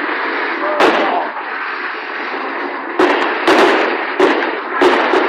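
Fireworks going off: a sharp bang about a second in and several more in quick succession in the second half, over a continuous noisy din.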